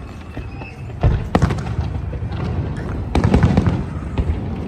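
Fireworks bursting overhead: a sharp bang about a second in and another just after, then a rapid cluster of bangs around three seconds in and one more near the end.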